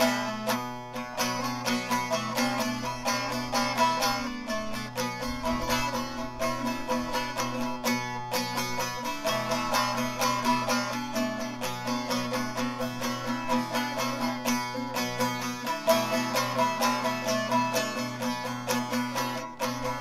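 Saz (bağlama), a long-necked lute, played solo with fast strumming: a quick, busy melody over a steady low drone.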